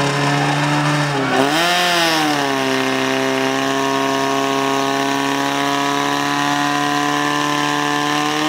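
Portable fire pump's small petrol engine running at high revs under load, pumping water through the attack hoses to the nozzles. Its pitch wavers about one and a half seconds in, then settles into a steady high drone.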